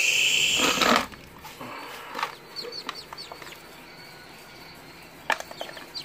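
Week-old quail chicks peeping, with a run of quick, high, downward-sliding peeps a couple of seconds in. The first second holds a loud hiss like a puff of air, and a few sharp clicks come near the end.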